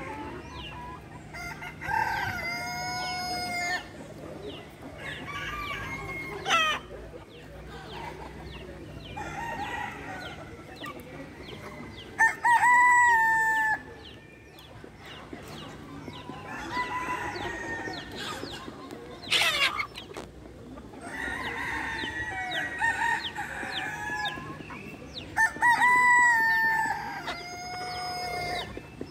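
Roosters crowing one after another, several long crows across the stretch, the loudest about twelve seconds in and again near the end, over the continual clucking of a flock of hens.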